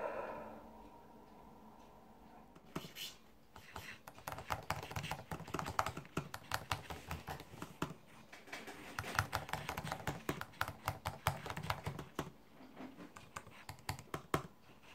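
Fast typing on a laptop keyboard: a dense, uneven run of key clicks that starts about three seconds in and stops just before the end.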